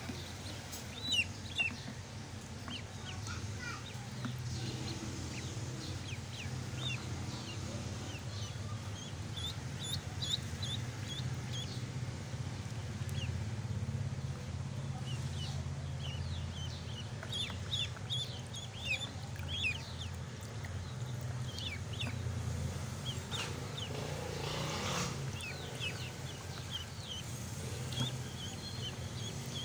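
Ducklings peeping, many short high chirps scattered throughout, over water splashing as they paddle. A steady low hum runs underneath.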